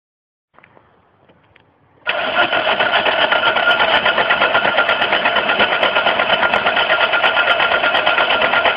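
Mercedes engine cranking on its starter motor without firing: a few faint clicks, then about two seconds in a loud, even, rhythmic chugging starts and keeps going without the engine catching.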